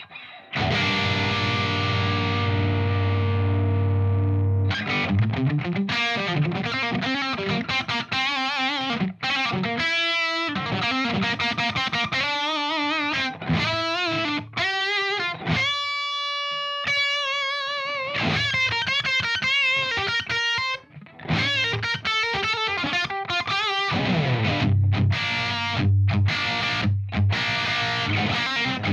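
Distorted electric guitar played through a Friedman JEL-100 100-watt tube amp head and cabinet. It opens with a long ringing chord, then moves into fast riffs and lead runs with wavering notes, a single held note about halfway through, and low chugging notes near the end.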